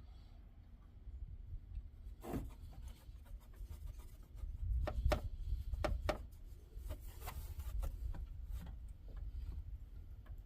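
Hand tools and engine bolts being worked by hand: irregular light clicks and rubbing scrapes, a small cluster about two seconds in and more from about four to nine seconds in, over a low rumble, as the last bolts are threaded in and snugged during a water pump install.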